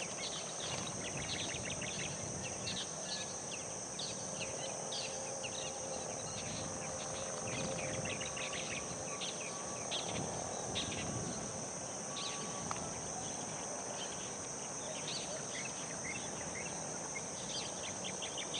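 Steady high-pitched drone of insects, with many short chirps scattered over it throughout.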